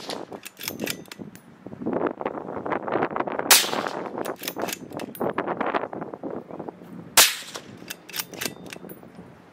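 Two suppressed shots from a .308 pistol fitted with a Q Thunder Chicken suppressor. They come about three and a half seconds apart, the first a little over three seconds in and the second about seven seconds in.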